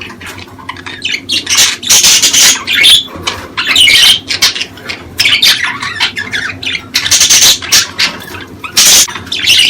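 Budgerigars chattering and squawking, a busy run of short, sharp calls.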